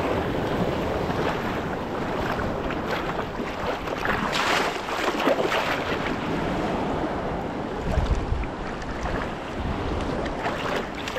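Shallow sea water sloshing and splashing around a camera held at the waterline, with wind buffeting the microphone. A fizzing splash comes about four and a half seconds in, and a low buffeting thump about eight seconds in.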